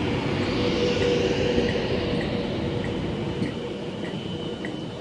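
Virgin Trains Class 390 Pendolino electric train running slowly along the platform: a steady rumble of wheels and running gear with a faint steady whine, getting gradually quieter as it draws to a stop.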